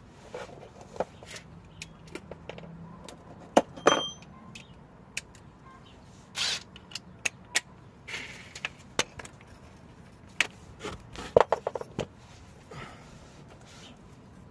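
Hand tools working on metal: a 13 mm socket wrench clinking and scraping on the bolts while a starter motor is unbolted, with scattered sharp clicks and knocks and a quick run of clicks about eleven seconds in.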